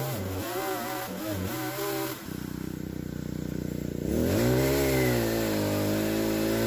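Small pole chainsaw's motor running with its pitch wavering up and down, then about two seconds in dropping to a lower, steady pitch for about two seconds before rising again and holding steady. The dinky saw is cutting green trees, a job it struggles with.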